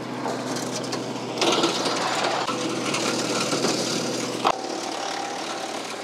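Tractor-driven Woodmaxx MX8600 PTO wood chipper chewing up a leafy limb fed into its hopper, over the steady drone of the compact tractor's engine. The chipping noise rises about a second and a half in and lasts about three seconds, ending with a sharp crack, after which the chipper spins on with a steady hum.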